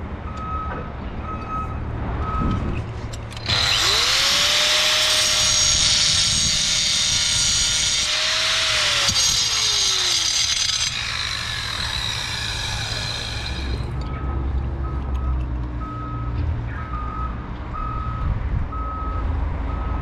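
A handheld power tool starts about three seconds in, its motor whine rising quickly, and runs loudly for several seconds before winding down with a falling whine. A truck's reversing beeper sounds before the tool starts and again after it stops.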